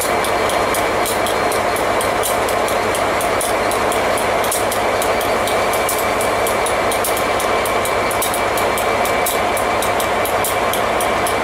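Class 67 diesel locomotive standing with its EMD two-stroke V12 engine idling, a steady drone with a faint steady tone above it and a fast, light, high ticking over it.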